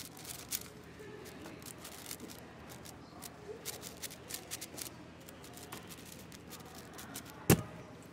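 A 6x6 speedcube (AoShi WRM) being turned quickly, a fast uneven run of plastic clicks and rattles. About seven and a half seconds in there is a single loud thump as the solve ends and the hands come down on the competition timer to stop it.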